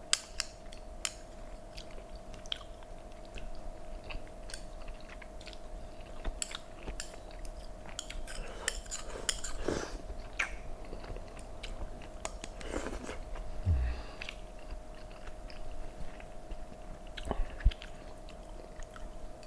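A person chewing soft braised pork belly and rice cake: wet, close-up mouth sounds with smacking, broken by occasional sharp clicks of metal chopsticks against a plate.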